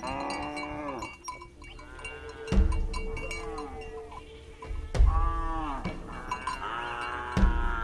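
A herd of livestock calling over one another: many wavering, falling bleats and a long, level lowing call, with cowbells clinking. Three dull low thumps stand out about two and a half seconds apart.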